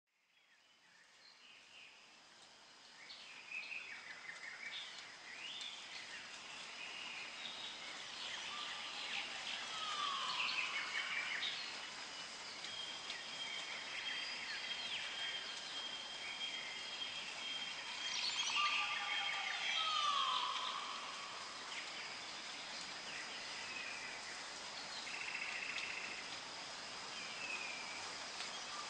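Jungle ambience fading in: assorted bird calls and chirps over a steady high insect drone, with a falling call that comes back about every nine seconds.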